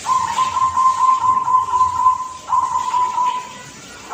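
A young perkutut (zebra dove) cooing: one long, slightly trilled coo of about two and a half seconds, then a shorter one that ends about three-quarters of the way through.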